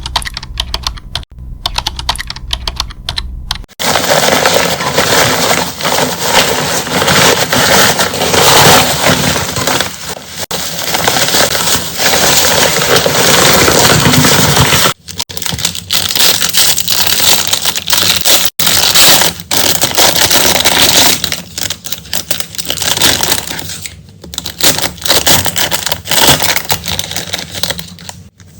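Stationery and its packaging being handled and unwrapped: crackling, crinkling plastic and paper with many small clicks. It breaks off abruptly about four, fifteen and eighteen seconds in.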